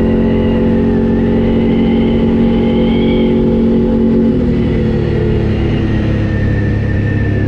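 ATV engine and exhaust running under way at a steady pitch, then dropping to a lower pitch a little over halfway through and holding there.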